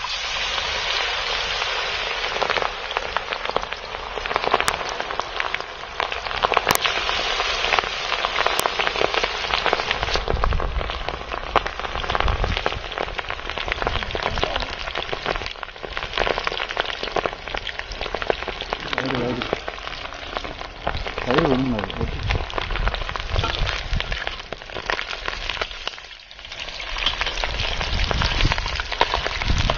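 Batter-coated chicken feet deep-frying in hot oil in an iron kadai: a loud, steady sizzle with crackling, starting suddenly as the pieces go into the oil.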